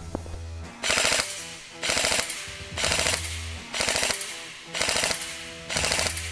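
D.E. Armory M906A airsoft electric rifle (AEG) firing six short bursts about a second apart, each a quick rattle of the gearbox cycling, set to five-shot burst mode on its electronic trigger.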